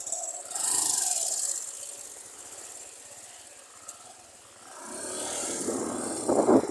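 Motor vehicle on a flooded road, its noise building near the end as it draws closer, with a brief hiss about a second in.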